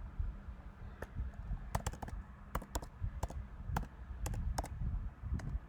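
Irregular clicks of someone operating a computer by keyboard and mouse, starting about a second in, some coming in quick pairs, over a low rumble.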